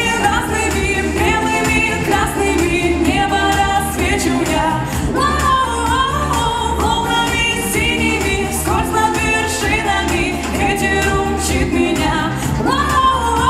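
Pop song with singing over a steady beat.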